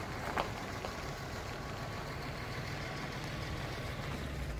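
Pickup truck carrying a slide-in camper creeping along slowly, its engine running steadily at low revs.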